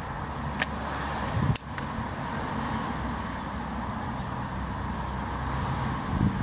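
Air rifle shooting outdoors: a few sharp cracks in the first two seconds, the loudest about a second and a half in, over a steady low rumble.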